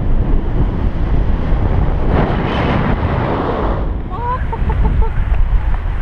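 Wind buffeting the microphone of a camera on a paraglider in flight, a steady heavy rumble. About four seconds in comes a short rising tone followed by a quick run of brief high beeps.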